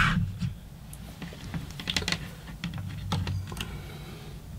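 Scattered light plastic clicks and taps from a clamp meter being set down on a plastic battery case and test-lead probes being pushed into the battery's terminal slots.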